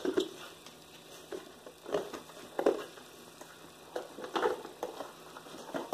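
A few faint, scattered rustles and soft taps from handling things, with quiet gaps between them.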